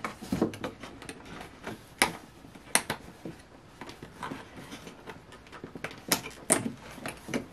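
Hands working at a doll's cardboard-and-plastic display box: rustling and scraping with scattered sharp clicks, the loudest about two seconds in and again about six seconds in.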